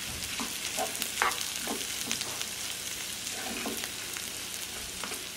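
Chopped red and green chillies and ground fried salted fish sizzling steadily in oil in a frying pan, stirred with a spatula that scrapes the pan in short strokes about every half second. The aromatics are frying until fragrant, before the beaten eggs go in.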